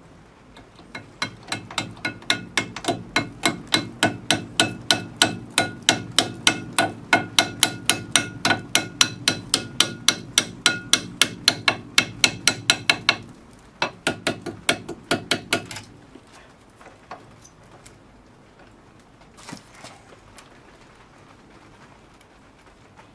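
A hammer tapping rapidly on metal, about four ringing strikes a second, driving a new brake pad into its clipped caliper carrier. The strikes stop briefly just over halfway through, then go on for a couple more seconds.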